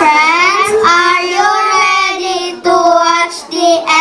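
Young children singing into microphones, a melody of long held notes.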